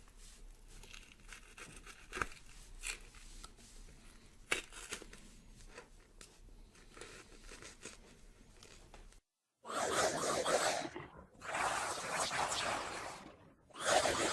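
Horror sound effects: a faint stretch of small scattered clicks and scrapes, then after a brief cut, three loud, rough, noisy bursts of about a second and a half each, close together near the end.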